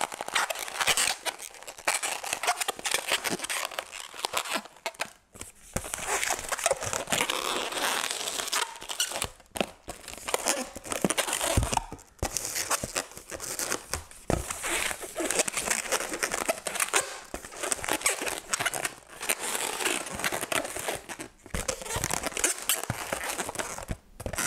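Latex modelling balloons being handled and twisted, their rubbing skins making a dense, crinkling noise broken by a few short pauses.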